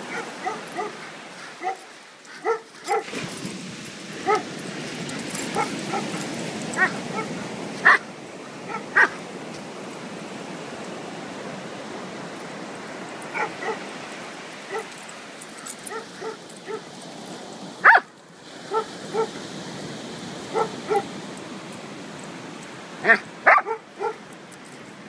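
A dog yipping and barking again and again in short calls, over the steady hiss of the surf.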